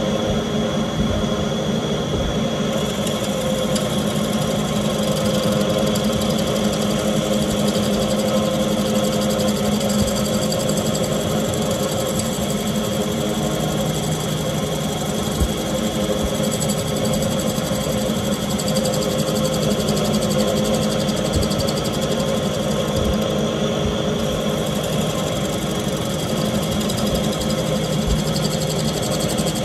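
Wood lathe running steadily while a bowl gouge cuts the spinning Goncalo Alves bowl: an even motor hum with the scraping noise of the cut and shavings coming off the wood.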